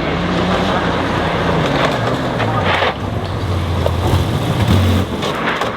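Rally car engine running hard, its note dropping lower about three seconds in, over a rough noisy wash.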